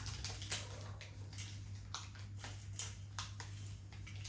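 Irregular rustling and light clicks of grocery items and packaging being handled, a few a second, over a steady low hum.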